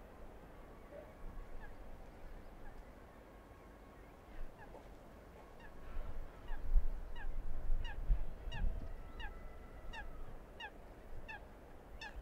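Geese honking, a run of short falling honks about two a second that starts faint and grows louder through the middle, under low gusts of wind rumbling on the microphone.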